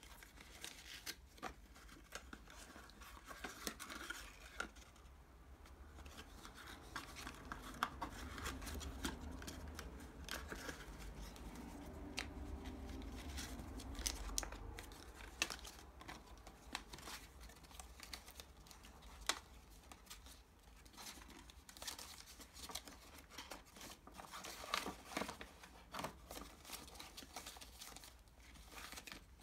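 Paper and cardstock being handled: rustling, flaps folding open and small pop-up cards being pulled out, with scattered sharp clicks and snaps. A low rumble runs under it for several seconds in the middle.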